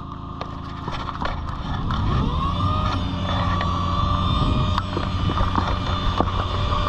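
Surface-tow engine revving up about two seconds in, then running steadily as it pulls the hang glider forward for launch, with a rough rush of air that grows louder toward the end.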